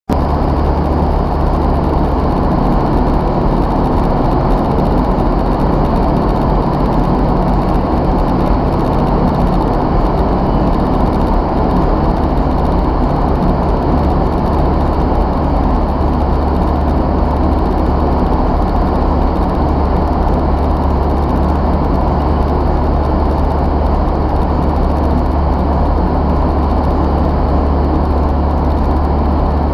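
Vertical wind tunnel running at flying speed: a steady roar of rushing air with a low hum from its fans.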